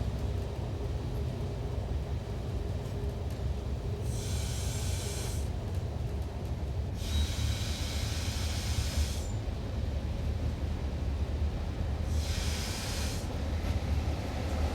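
Diesel railcar engine rumbling steadily, heard from inside the driver's cabin, with three bursts of hiss: one about four seconds in, a longer one about seven seconds in, and a short one near the end.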